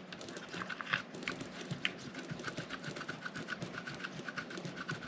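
A small screw being driven by hand into a plastic RC-truck hub: a run of light, rapid clicks and ticks from the tool and screw, irregular at first and then about four or five a second.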